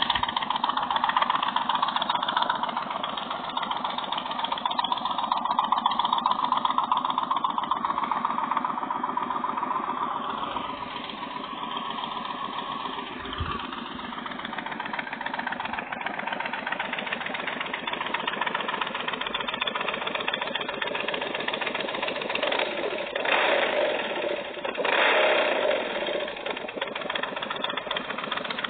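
Recorded engine sound of a Victory High-Ball motorcycle's V-twin, running steadily at idle, with two brief revs about 23 and 25 seconds in.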